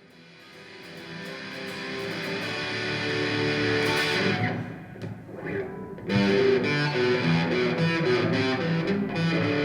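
Music led by electric guitar that fades in from silence over the first four seconds, drops briefly about five seconds in, then comes back louder.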